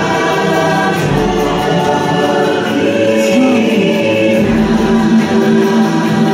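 Choral singing with long held notes over the ride's background music.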